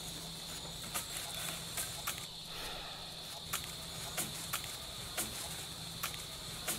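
Steady high-pitched insect drone, like crickets or cicadas, with scattered sharp clicks and knocks at irregular intervals.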